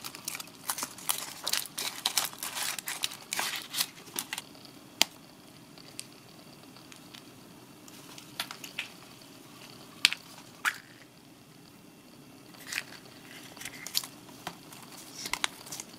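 Wrapper of a surprise egg crinkling and tearing as it is unwrapped by hand, with sharp crackles and clicks that are dense for the first few seconds and then come in scattered ones.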